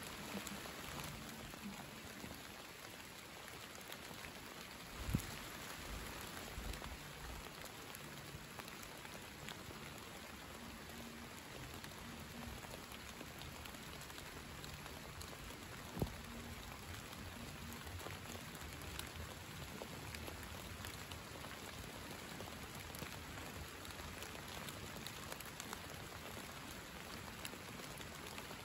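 Steady summer rain, an even soft patter, with two sharp taps, one about five seconds in and one about sixteen seconds in.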